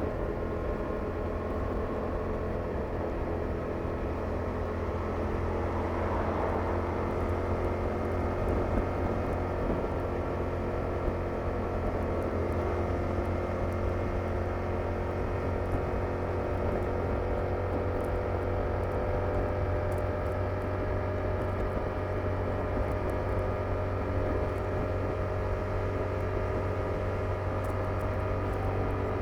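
Yamaha R7's 689 cc parallel-twin engine and stock exhaust under way at a steady cruise, the pitch briefly shifting about six seconds in.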